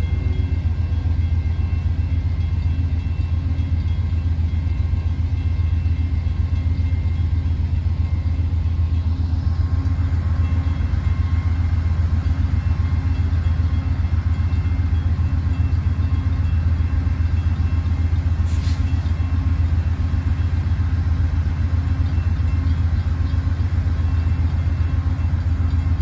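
Amtrak train led by a GE P42 diesel locomotive, a steady low rumble with faint steady tones above it.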